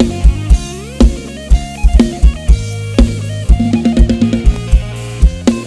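Instrumental Thai sound-check dance music: a heavy bass drum and snare drive a steady beat under a deep, sustained bass line, while a lead instrument plays melodic lines with sliding notes.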